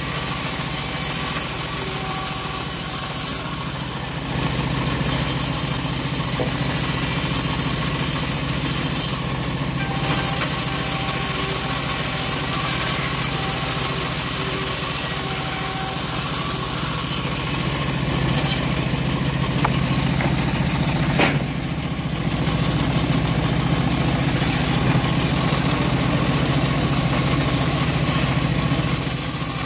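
Homemade bandsaw mill running steadily with its blade ripping a teak board lengthwise: a continuous machine hum with cutting noise over it, growing a little louder a few seconds in and again about three-quarters through. A single sharp click a little past two-thirds through.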